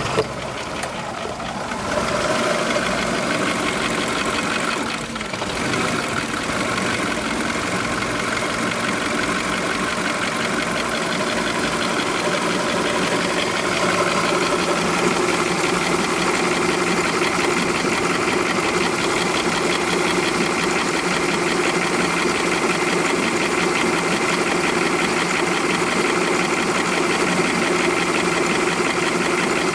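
2005 VW Polo 1.4 engine idling with a fast, even clicking over the running; the owner does not know its cause.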